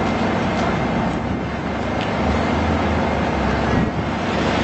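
Steady outdoor city noise: a continuous low rumble of traffic mixed with wind buffeting the microphone.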